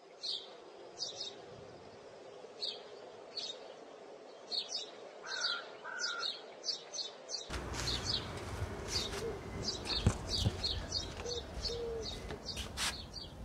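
Small birds chirping, short high calls repeating irregularly. About halfway through, the background abruptly becomes fuller and noisier, with a few sharp clicks, while the chirping goes on.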